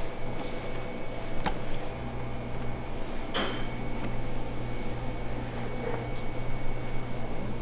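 Steady low hum of a restaurant kitchen's fan or ventilation, with a few sharp clinks of dishes or utensils, the loudest about three and a half seconds in.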